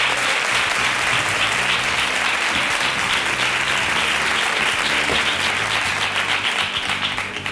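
Studio audience applauding: a dense, steady clapping that fades out near the end.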